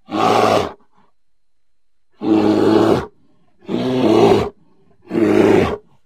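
Bear roaring: four short, angry roars, each under a second long and about a second and a half apart.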